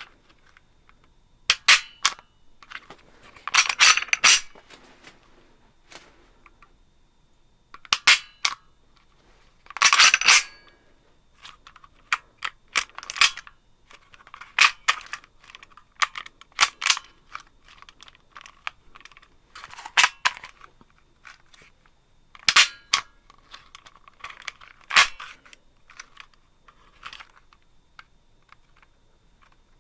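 H&K USP40 V1 pistol's decocking lever being worked over and over, the hammer snapping down each time. The sharp metallic clicks and snaps come in clusters every two to three seconds.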